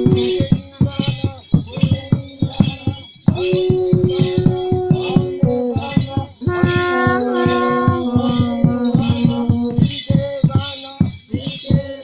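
Dance music with a quick, even beat of about four strokes a second and bright jingling, over long held melodic notes; the beat breaks off briefly twice.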